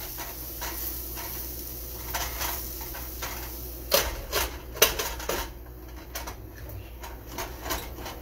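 Cookware clatter: a silicone spatula stirring and scraping in a frying pan, with a glass pot lid knocking against the pan. A scatter of knocks, the two loudest a little past halfway as the lid is set down on the pan.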